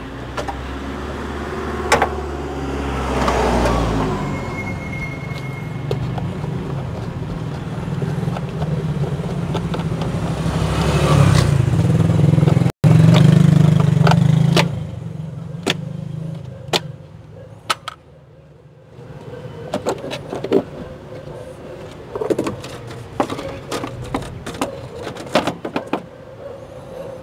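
A motor vehicle engine running, its pitch rising and falling, which stops abruptly about fifteen seconds in. After it come sharp plastic clicks and knocks as the air filter housing's clips are undone and the lid is lifted off.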